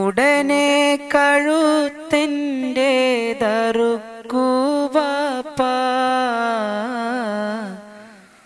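A man sings a Malayalam Islamic devotional song solo into a microphone, with no instruments. He holds long, drawn-out notes and ornaments them with small turns, and his voice fades away near the end.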